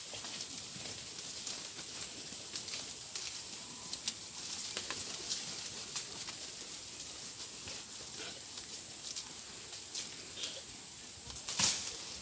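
Outdoor forest ambience: a steady high hiss with scattered faint ticks, and a louder rustle and crackle of brush near the end.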